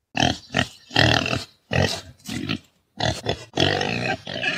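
Wild boar calling in a run of short, rough calls, about seven in a few seconds, separated by brief pauses.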